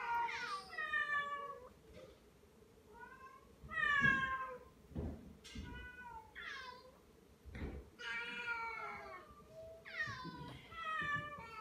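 Calico cat meowing over and over, about seven or eight drawn-out calls that mostly fall in pitch, with a few low thumps between them: anxious crying.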